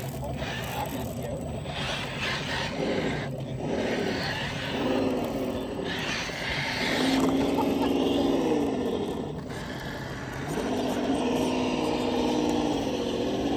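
Electric motor and gearbox of an RC scale rock crawler whining under throttle as it climbs rock, the pitch rising and falling in several swells, longest in the second half.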